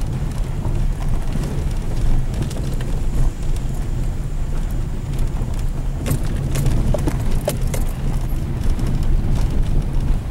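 Car rolling slowly over a gravel road, heard from inside the cabin: a steady low rumble of engine and tyres, with gravel crunching and scattered sharp ticks, most of them about six to eight seconds in.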